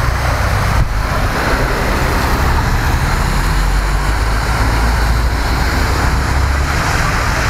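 Cars driving through a flooded street, their tyres splashing and hissing through standing water during a heavy rainstorm. The sound is a steady, even rush with a strong low rumble underneath.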